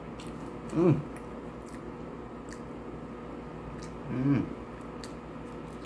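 A man eating chicken nuggets makes two brief closed-mouth "mm" sounds, one about a second in and one about four seconds in, with faint mouth clicks from chewing between them.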